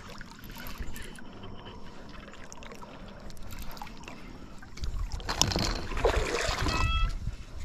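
Water splashing and sloshing against the side of an inflatable paddle board as a hooked bass is brought alongside and landed. It is quiet at first and louder from about five seconds in, with a brief high squeak near the end.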